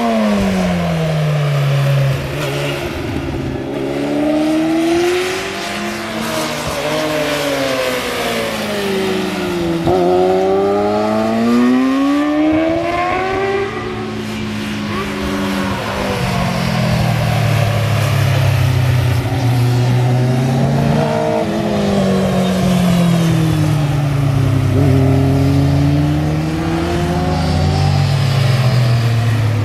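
Sport motorcycle engines revving hard around a race circuit, the engine pitch repeatedly climbing under acceleration and dropping off into the corners. In the second half more than one bike is heard at once.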